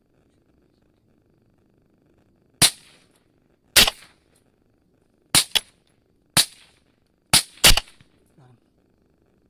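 Rifle shots: a string of sharp cracks, each with a short fading tail, starting a few seconds in, some coming in quick pairs near the end. A faint low hum runs underneath.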